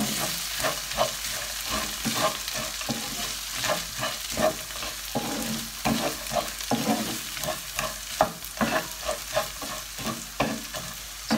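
Wooden spoon stirring and scraping crumbled instant noodles, frozen vegetables and chopped tomatoes around a non-stick pan, over a steady sizzle of frying. The spoon gives many short, irregular scrapes and knocks.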